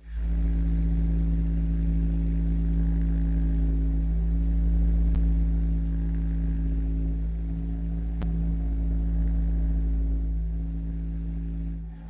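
Dark, ominous sound-design drone: a deep, steady rumble with a low hum held above it. It starts abruptly out of silence, and two faint clicks come about three seconds apart.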